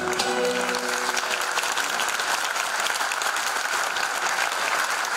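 Theatre audience applauding, the clapping starting over the last held notes of the ensemble's song, which fade out in the first second and a half.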